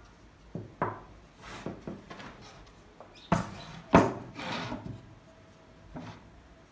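Wooden pieces knocking and scraping against a wooden workbench as they are handled and set down: a string of sharp knocks with short scrapes between them, the loudest knock about four seconds in.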